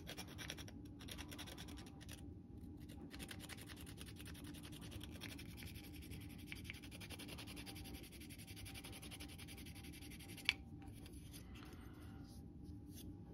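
Hand file scraping across a small plastic model part in fine, rapid strokes, with a short pause about two and a half seconds in. The filing stops with a sharp click about ten and a half seconds in.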